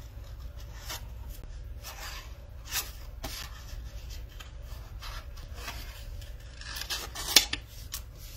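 Scissors snipping through cardstock in short, separate cuts, with the paper rubbing and rustling as it is turned between cuts; one sharper snap stands out about seven seconds in.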